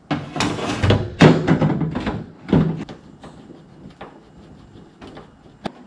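Car scuttle panel being lowered into place and pressed down by hand: loud scraping and knocking of the panel against the cowl for about three seconds, then lighter taps and one sharp click near the end as it seats.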